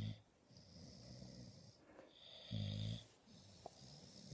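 Dog snoring in its sleep: a low buzzing snore at the start and another about two and a half seconds later, with a faint high whistling breath between them.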